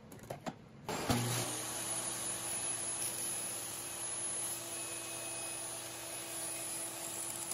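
Table saw motor switching on about a second in and running up to speed, then running steadily with a hum while its blade rips a thin strip of maple fed with a push block.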